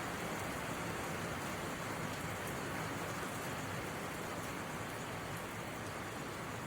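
Steady rain falling: an even hiss of rainfall with faint individual drop ticks in it.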